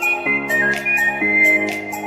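Background music: sustained chords with a whistle-like melody over a light, regular percussion beat.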